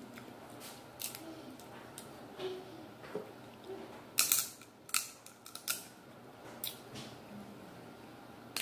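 King crab leg shell being cracked and snapped apart, a string of sharp cracks and clicks, loudest about four to six seconds in.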